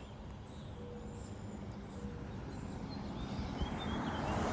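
Outdoor ambience: a steady, rushing background noise that grows gradually louder, with a few faint, short bird chirps near the end.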